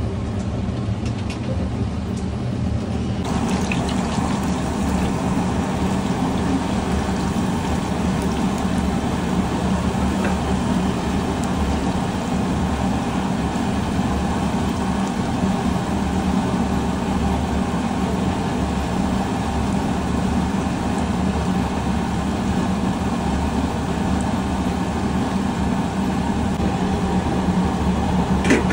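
Battered fritters deep-frying in a kadai of hot oil: a steady sizzle that comes in about three seconds in, over a continuous low rumble.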